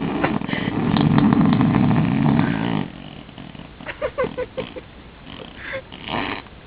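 A raspberry blown against bare skin: a loud, wet, flapping buzz of lips on a leg, sounding like a fart, that lasts about three seconds and stops abruptly. A few short, higher sounds follow.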